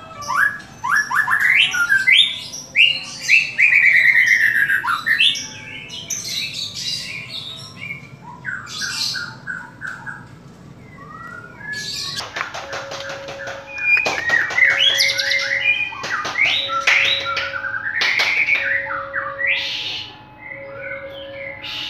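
Caged songbird singing a loud, varied song of whistles, rapid trills and harsh notes. From about halfway a low steady note repeats about every two seconds underneath the song.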